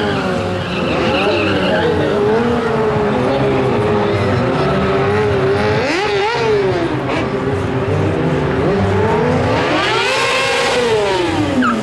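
Sport motorcycle engines held at high revs during stunt riding, the pitch wavering. There is a quick rev up and down about halfway through, then a long climb in pitch that falls away near the end.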